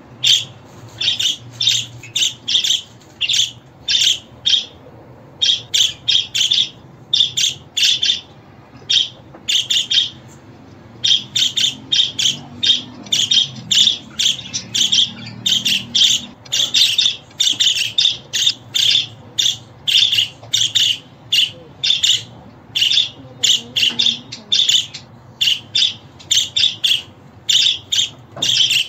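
Budgerigars chirping: a long run of short, sharp, high calls, about two a second, broken by a few brief pauses, over a faint low hum.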